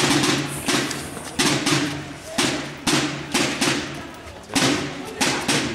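A drum slung at the waist and beaten with sticks in a steady, repeating rhythm, about two strikes a second, each hit a sharp knock with a low boom under it.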